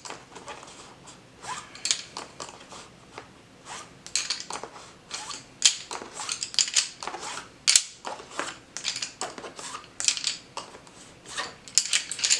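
Arteza wooden coloured pencils clicking against one another and the table as they are picked out of the set and laid down: a run of irregular, sharp clicks.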